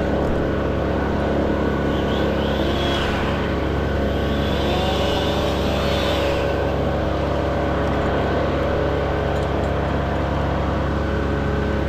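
An engine running steadily at idle, a constant low hum with no revving.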